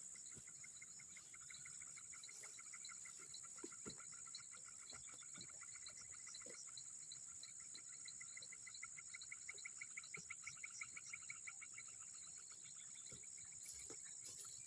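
A frog calling in a long, rapid train of pulses, fading out near the end, over a steady high-pitched insect drone of the swamp at night.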